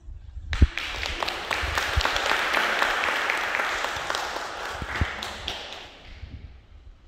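Audience applauding at the end of a flute piece, starting about half a second in with one sharp knock near the start, then fading away near the end.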